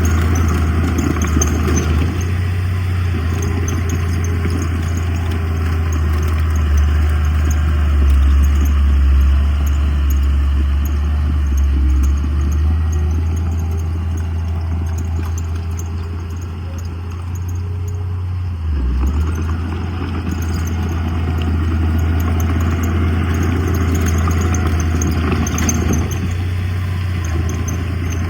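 Heavy diesel earthmoving machinery running steadily under work, with a deep engine drone and faint clatter. The engine eases off for a few seconds past the middle and picks up again.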